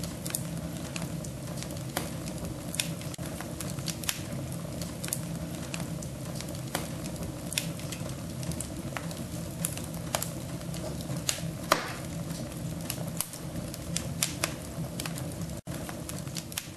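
Fire crackling in a fireplace stove: irregular sharp pops and snaps over a steady low rumble of the flames.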